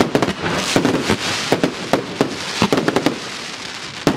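Jorge 'Show of Fireworks' JW56 consumer firework cake firing a fanned salvo: a rapid, uneven string of sharp bangs, several a second, over a steady hiss of burning stars and crackle.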